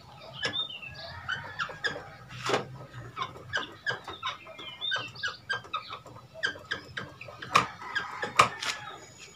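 Chickens clucking in short, repeated calls, among a few sharp clicks and knocks.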